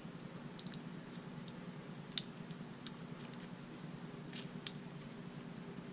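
Scattered light clicks and taps of a metal Parker Jotter-type ballpoint refill being fitted into a metal pen barrel by hand, the sharpest about two seconds in and a few more near the end.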